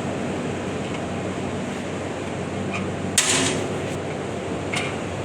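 Steady industrial machine hum, with one short, sharp metallic clatter about three seconds in.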